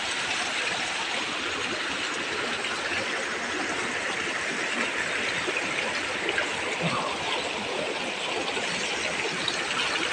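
Rain-swollen stream with a strong current, rushing and breaking against a bamboo footbridge: a steady, even rush of water.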